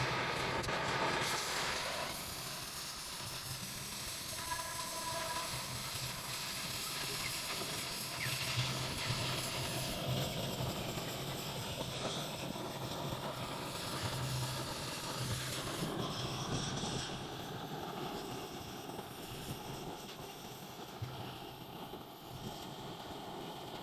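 Steady machinery noise with a hiss, without a clear rhythm.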